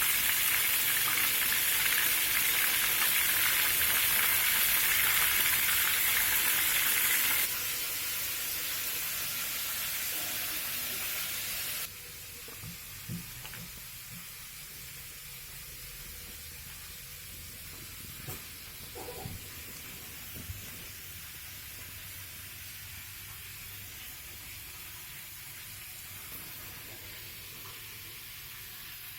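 Fish frying in a pan: a steady sizzle that drops abruptly in level about seven seconds in and again about twelve seconds in, then goes on quieter with a few faint clicks.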